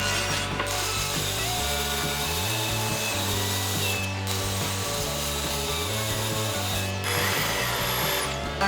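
Background music of sustained tones over a bass line that steps from note to note every second or so, with a high gliding tone near the end.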